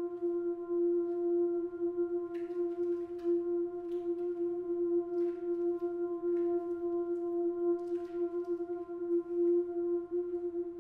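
A steady musical drone held on one low-middle pitch with a few overtones, unchanging throughout, with a few faint brief soft sounds over it.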